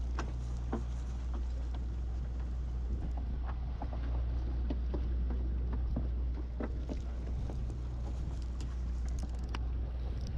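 Steady low drone of a fishing boat's machinery, with scattered short clicks and knocks over it.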